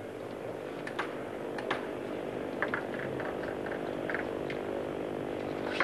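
Sharp, light ticks of a celluloid table tennis ball bouncing and being struck during a point, over a steady hall hum.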